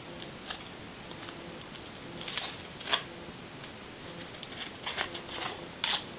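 Green reed stalk being peeled and torn apart by hand: scattered small crackles and rustles of the stem and leaves, with sharper snaps about three seconds in and near the end.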